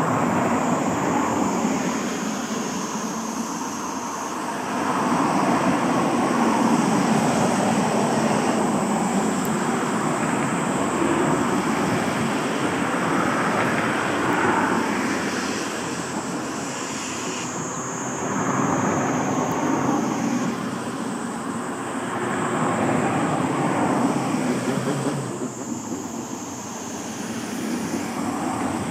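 Tobu Railway's C11 steam locomotive hauling its train, a noisy rushing sound of exhaust and running that swells and fades every few seconds.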